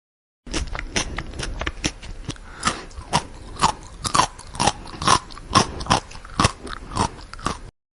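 A person chewing crunchy food with the mouth close to the microphone, a steady run of crunches about twice a second. The sound starts and stops abruptly.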